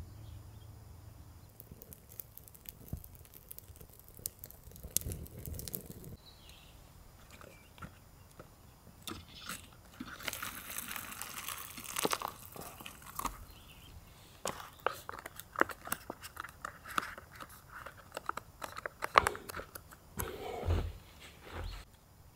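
Close-up handling noise: irregular clicks, crunches and crinkling, with a denser rustling stretch about halfway through.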